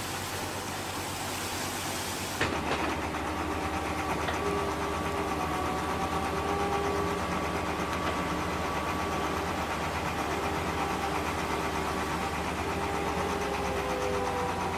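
Rushing water for about the first two seconds, then, after a sudden change, heavy diesel machinery running steadily: a low rumble with several faint steady whining tones.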